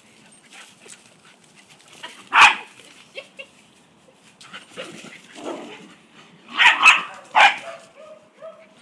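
Dogs playing rough, barking: one sharp bark about two seconds in and a quick run of three loud barks near the end, with quieter scuffling and vocal noises between.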